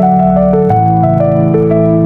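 Relaxing instrumental music: a gentle keyboard melody of steady, stepping notes over held bass notes, the bass chord changing about two-thirds of a second in.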